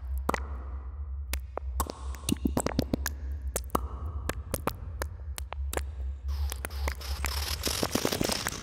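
Live electronic noise music: irregular sharp clicks and crackles over a steady low hum, with a dense burst of static hiss breaking in about six and a half seconds in.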